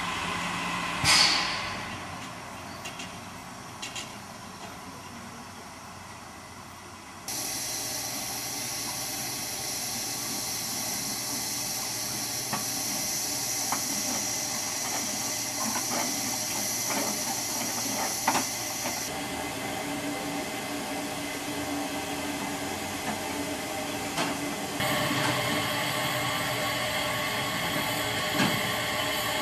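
Narrow-gauge steam locomotive standing and hissing steam steadily, with a short loud burst about a second in and a few sharp knocks later on.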